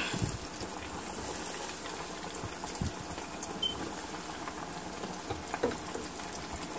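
Chicken pieces deep-frying in hot grease in a pan: a steady bubbling sizzle with scattered small crackles.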